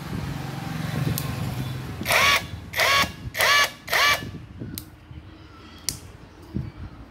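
Hitachi cordless impact wrench motor run in four short bursts, each spinning up with a rising whine and dropping back as the trigger is released. The tool runs again now that its faulty control board has been replaced. A low hum comes before the bursts.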